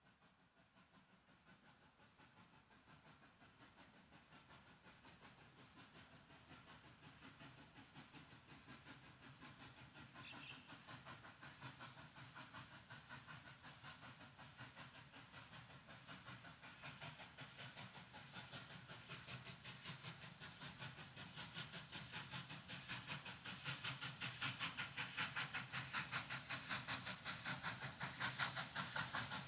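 Victorian Railways K class 2-8-0 steam locomotive K153 approaching, its exhaust chuffing in a rapid, steady beat that starts faint and grows steadily louder.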